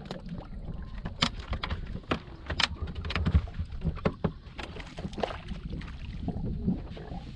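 Choppy water slapping against a boat's hull with a low rumble of wind, broken by a string of sharp knocks and slaps that are loudest around the middle.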